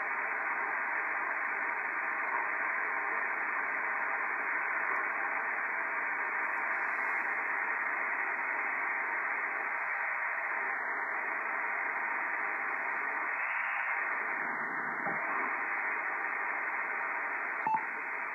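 Steady static hiss from a Yaesu Mark-V HF transceiver's receiver, tuned to an empty stretch of the 20-metre SSB band while the DX station it is following is listening. There is a single sharp click near the end.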